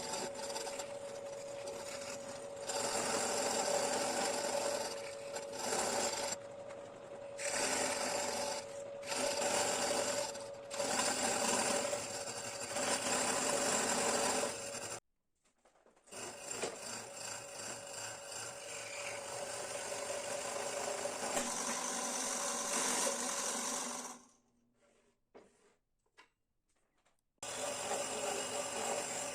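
A small power tool running with a steady whine while it grinds into ash wood, the grinding coming and going in stretches. The sound cuts out suddenly twice: briefly about halfway through, and for about three seconds near the end.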